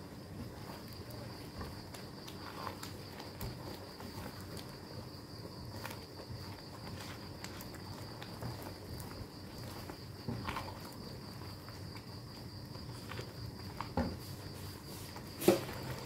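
A white plastic spatula stirring and scraping thick rendang spice paste in a non-stick wok, with a few soft knocks and one sharper knock near the end. A faint, steady high-pitched whine runs underneath.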